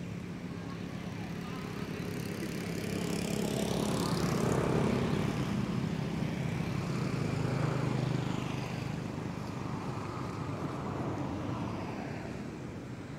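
A motor engine passing by: a steady low hum that grows louder, is loudest about four to eight seconds in, and then fades away.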